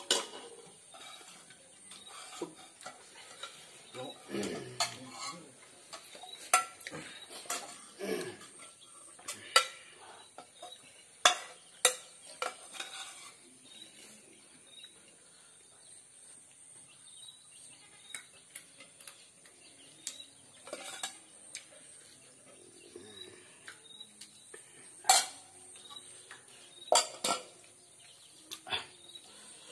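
Close-up eating by hand: fingers scooping and mixing rice on a metal plate, with scattered sharp clicks against the plate and chewing and lip smacks.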